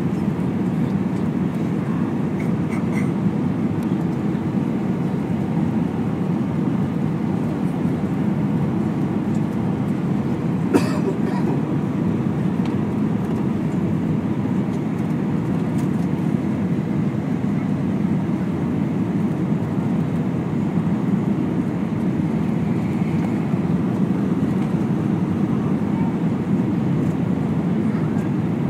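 Steady airliner cabin noise inside an Airbus A320 on approach: a constant rush of airflow and engine noise, with one short click about eleven seconds in.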